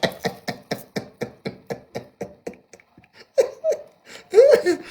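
A person's voice making a fast run of short, even pulses, about five a second, each dropping in pitch and fading out over about three seconds. A few short sounds with a bending pitch follow near the end.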